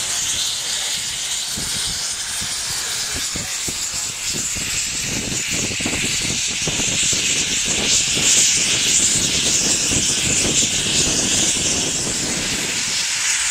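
Nickel Plate Road 765, a 2-8-4 Berkshire steam locomotive, hissing steam steadily, with an irregular low rumbling and thumping underneath that grows louder from about five seconds in and eases near the end.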